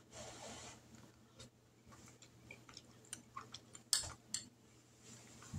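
Quiet mouth sounds of a person eating a spoonful of chicken and dumplings: a short breath near the start, then scattered small wet clicks of chewing, with a sharper click about four seconds in.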